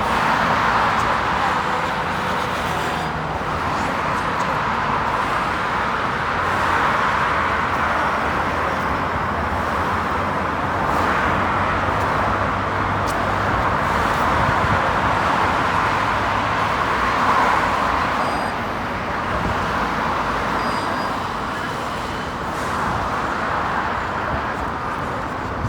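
Road traffic: a steady rush of cars passing on a street, swelling and fading as vehicles go by.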